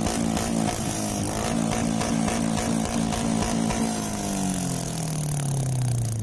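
Motorcycle engine held at high revs with a rapid stuttering pulse. From about four seconds in, the revs slowly fall away.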